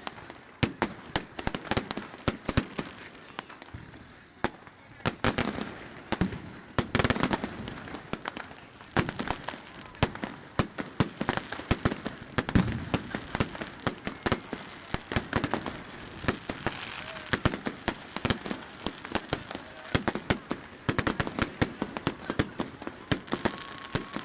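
Many fireworks going off at once: a dense, irregular run of sharp bangs and cracks, several a second.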